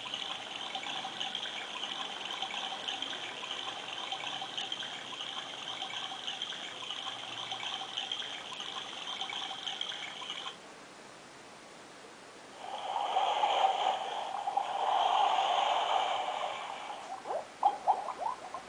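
Recorded nature sounds played through a star-projector alarm clock's small built-in speaker. A steady, water-like track cuts off sharply about ten seconds in. After a short hush, another nature sound comes in two louder stretches, and rapid short chirps begin near the end, as the clock switches between its sound tracks.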